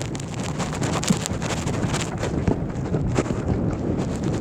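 Wind buffeting the microphone: an uneven, gusty rush of noise, heaviest in the low rumble, with frequent short knocks of gusts.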